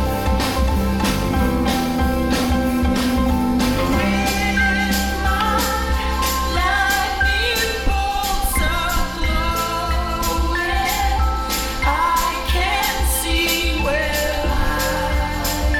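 Background music: a song with a steady beat, and a melody line that comes in about four seconds in.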